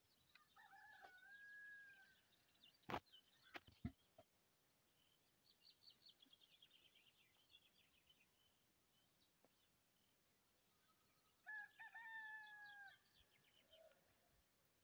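A rooster crowing twice, faint and distant, about a second in and again near the end, with small birds chirping in between. A few sharp clicks come between the first crow and the chirping.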